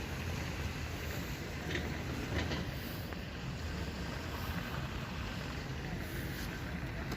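Steady seaside wind and surf noise, with wind rumbling on the microphone.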